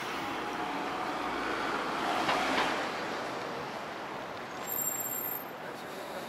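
Traffic on a busy city street, with a double-decker bus driving close by and a brief louder hiss about two seconds in.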